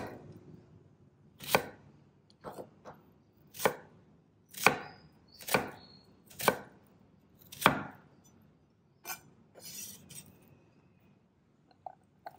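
A chef's knife chopping an onion on a bamboo cutting board: about ten sharp knocks of the blade against the wood, unevenly spaced at roughly one a second.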